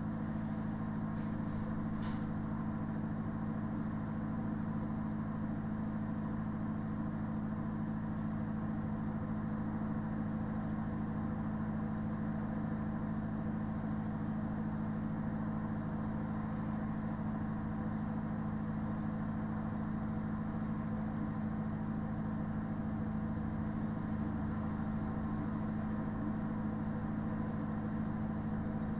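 Steady droning hum of a parked refrigerated lorry, its engine and refrigeration unit left running, at an even, unchanging pitch. A few faint ticks about one to two seconds in.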